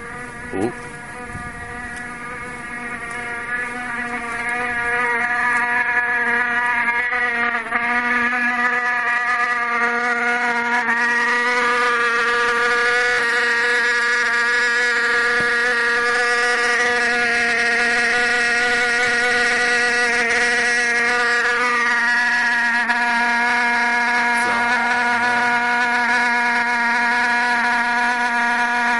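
A steady, pitched electrical-sounding buzz that grows louder over the first five seconds and then holds steady, with a brief sharp sound about half a second in.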